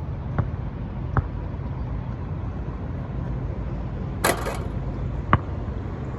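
Wind rumbling steadily on the microphone, with sharp thuds of a basketball bouncing on pavement about half a second in, just after a second, and again past five seconds. A brief, harsh rattle sounds a little past four seconds.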